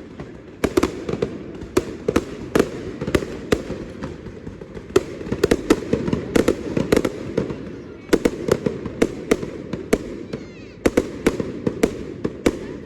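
Aerial fireworks display: a rapid, irregular string of sharp bangs and crackles, several a second, over a steady low rumble.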